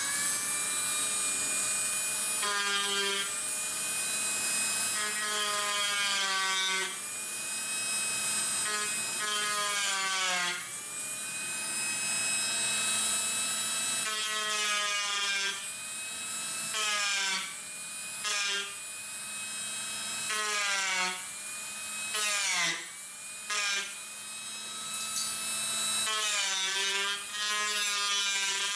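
Dremel rotary tool running at high speed, cutting into the wooden stock: its whine drops in pitch each time the bit bites into the wood and climbs back between passes, again and again.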